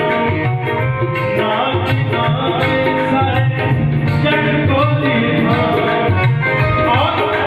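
Loud music with a steady, driving drum beat under a melody line.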